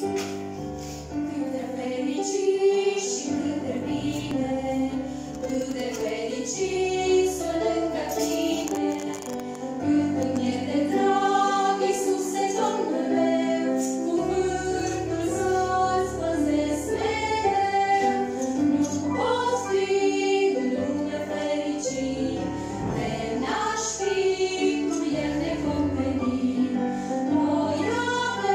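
A small group of women singing a Romanian Christian song together through microphones.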